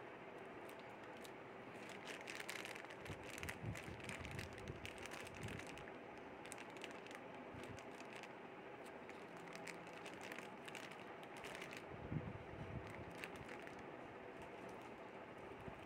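Plastic packaging crinkling and rustling as wrapped speakers and a bagged cable are handled, coming in two spells of crackle, with a soft bump late on. A faint steady hum lies underneath.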